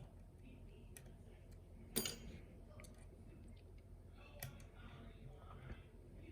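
Faint metallic clicks and taps of lock-picking tools working a lock, with one sharper click about two seconds in and a small cluster of lighter clicks a couple of seconds later.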